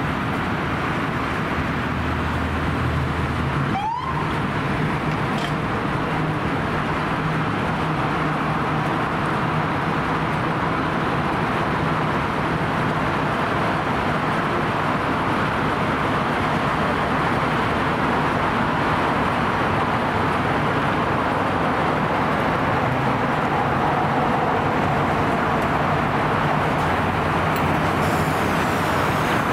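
Steady roar of road traffic mixed with the low hum of a fire engine's diesel engine running, unchanging throughout, with a brief dropout about four seconds in.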